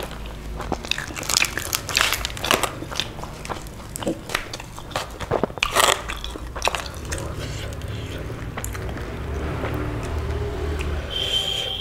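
Crisp deep-fried bhatura being torn apart by hand, a quick run of sharp crackles and crunches for about seven seconds, then quieter handling. Near the end a steady high tone starts.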